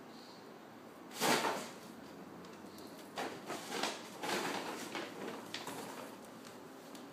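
Paper shopping bag rustling and crinkling in several short bursts as a cat scrambles at it and into it; the first burst, about a second in, is the loudest.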